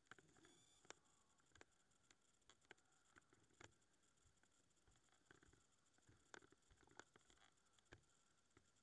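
Near silence, broken by faint, irregular small clicks and taps.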